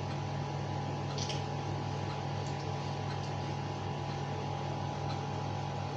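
Steady low electrical hum with hiss, room tone with no clear activity; a faint small tick about a second in.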